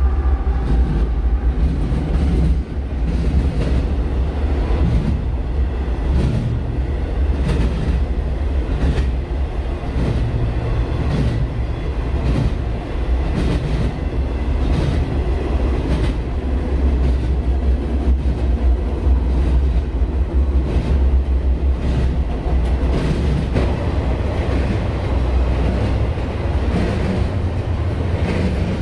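Freight train rolling past: a loud, steady low rumble, with wheels clacking over rail joints again and again.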